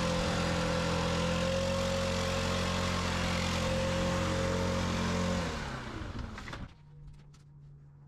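STIHL BR800 two-stroke backpack leaf blower running steadily, then shut off about five and a half seconds in, its engine winding down and stopping. A few faint ticks follow.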